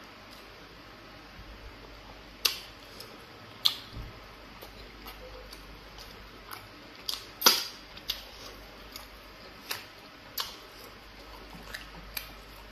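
Close-up mukbang eating sounds of fufu and egusi soup eaten by hand: sharp, wet mouth smacks and clicks while chewing, about ten of them at irregular intervals, the loudest about seven and a half seconds in.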